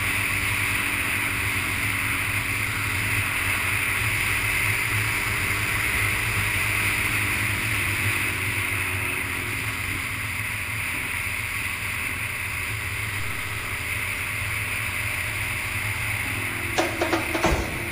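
Suzuki SV650S motorcycle riding at a steady cruise: its 645 cc V-twin engine drones under a constant rush of wind noise on the bike-mounted camera. Near the end, a run of drum beats from music cuts in.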